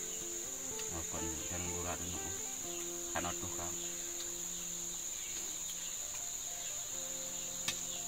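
Forest insects droning as one continuous high-pitched whine that holds steady throughout.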